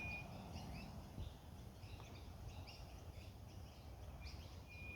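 Birds chirping faintly, scattered short high calls, with a thin steady whistled note at the start and again near the end.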